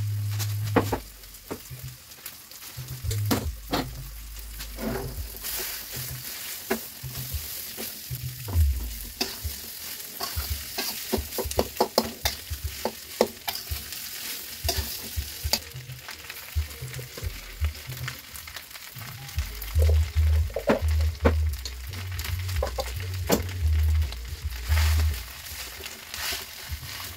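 Rice frying in a steel wok: a steady sizzle with frequent sharp clinks and scrapes of a metal spatula against the wok as the rice is stirred in. Dull low bumps come in during the last third.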